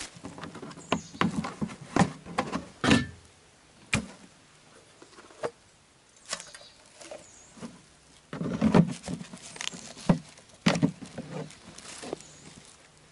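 A hard plastic lantern carry case being opened and a camping lantern lifted out and set down on dry leaves: a string of plastic clicks, knocks and clunks, with a busier burst of handling and leaf rustling about two-thirds of the way through.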